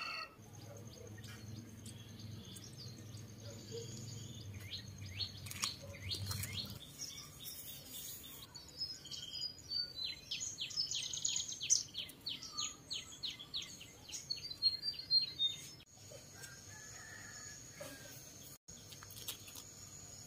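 Small birds chirping and singing, with a fast run of repeated chirps in the middle. A faint low hum lies underneath for the first several seconds, and a steady high-pitched tone comes in near the end.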